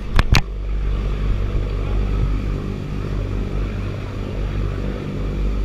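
Boat engines under way at speed, a steady low drone over the rush of water along the hull. Two sharp knocks come right at the start.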